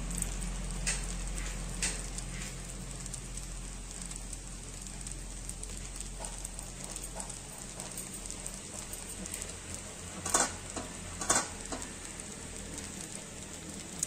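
Egg fried rice crackling faintly in an aluminium pot on the stove, over a steady low hum. About ten seconds in come two sharp clicks a second apart.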